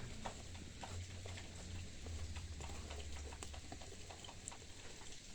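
Faint, scattered light clicks and taps of hands handling and cleaning lawnmower wheel and drive parts, over a steady low hum.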